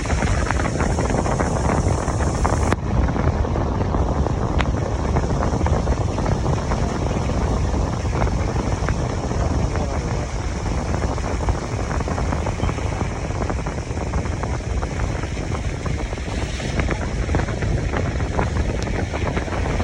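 Wind buffeting the microphone: a steady low rumble that stays loud, with the high hiss dropping away about three seconds in.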